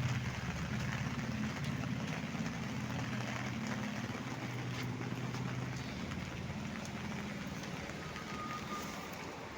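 A vehicle engine idling with a low, pulsing hum that slowly gets quieter, over a steady hiss of heavy rain.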